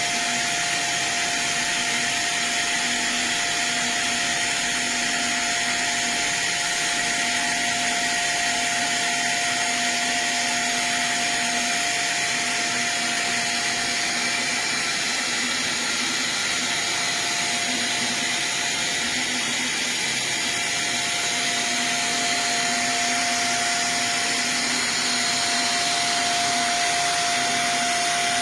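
Vinyl record-cutting lathe running: a steady suction-like hiss, such as the lathe's vacuum or chip-suction system makes, with a single steady tone over it.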